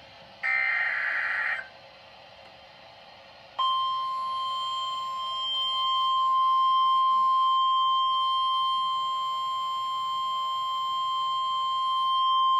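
NOAA Weather Radio SAME header: a harsh, raspy digital data burst about a second long. About two seconds later the steady single-pitch 1050 Hz warning alarm tone starts and holds for about nine seconds, the signal that a new warning, here a tornado warning, is about to be read.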